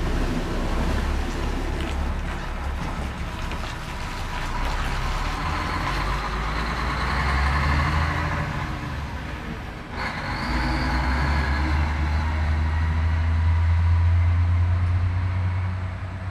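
Dump truck's diesel engine pulling out of a gravel driveway onto the road and driving away. It runs as a steady low rumble, drops briefly about ten seconds in, then picks up and is loudest near the end.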